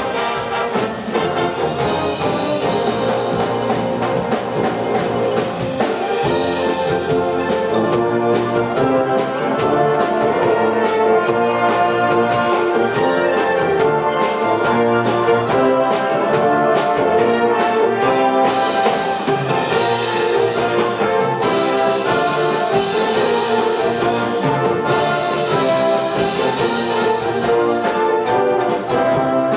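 Live high school wind band playing loudly: trumpets and trombones over drums, with a steady beat.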